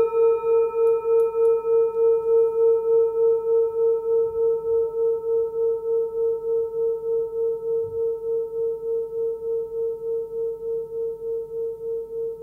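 A hand-forged Tibetan singing bowl rings after a single strike: one clear sustained tone with fainter higher overtones. It wavers in a steady pulse about three or four times a second and fades slowly.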